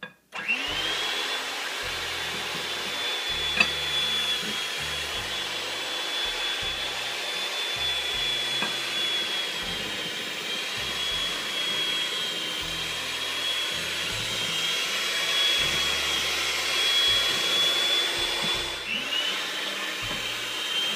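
Electric hand mixer running steadily, its beaters working flour into creamed butter and sugar to make a crumbly shortbread dough. Its whine rises as it switches on about half a second in, with a single sharp knock a few seconds in, and near the end the motor briefly cuts out and spins back up.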